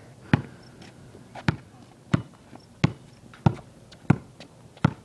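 Basketball being dribbled on a concrete driveway: a steady series of sharp bounces, about one every two-thirds of a second.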